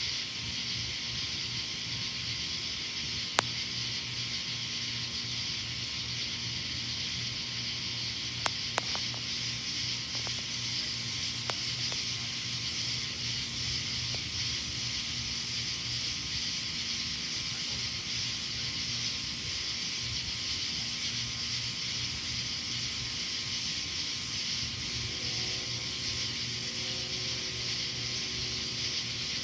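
Steady high hiss of night ambience under a storm sky, broken by a few sharp clicks: a loud one about three seconds in, two close together about eight and a half seconds in, and a fainter one a few seconds later.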